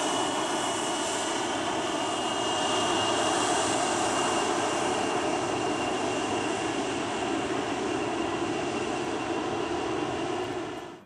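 McDonnell Douglas MD-88 jet taxiing, its rear-mounted Pratt & Whitney JT8D turbofans running at low taxi power: a steady jet roar with a thin high whine over it. The sound cuts off abruptly near the end.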